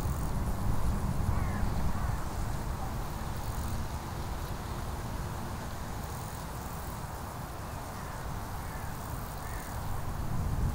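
Outdoor ambience: a steady low rumble with a few faint, short bird calls, about a second and a half in and again near the end.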